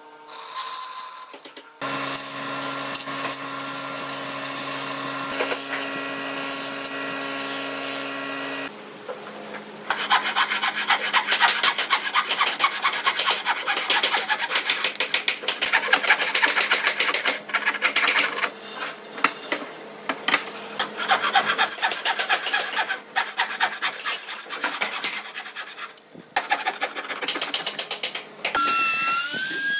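Bandsaw running steadily while cutting a pine board, then a hand saw cutting wood in fast, rasping back-and-forth strokes through most of the rest. A power tool's rising whine comes in near the end.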